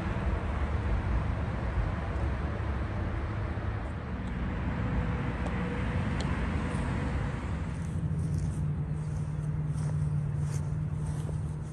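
Motor vehicle running nearby: a broad rumble, giving way about eight seconds in to a steady low hum, with a few short high ticks near the end.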